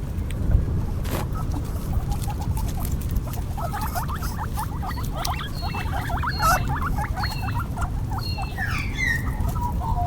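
A group of small animals making many rapid, short squeaks or peeps, starting about three and a half seconds in, over a steady low rumble.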